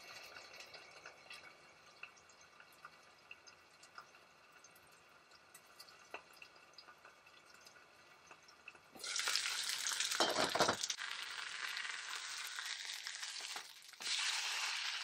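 Meat frying in a nonstick frying pan: a faint covered crackle with scattered pops, then loud, steady sizzling from about nine seconds in, dipping briefly just before the end.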